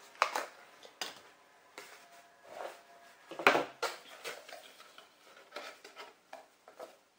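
Scattered clicks, taps and rustles of a collectible vinyl figure being handled and taken out of its cardboard box and plastic packaging, with a louder knock about three and a half seconds in.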